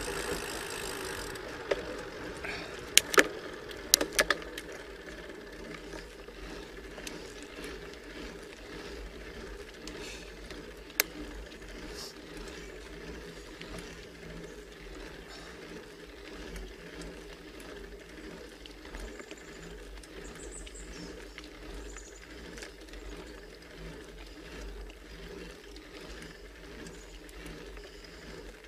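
Bicycle drivetrain under load, the chain running over the sprockets as the rider pedals slowly up a steep climb. A few sharp clicks come about three to four seconds in, and one more near eleven seconds.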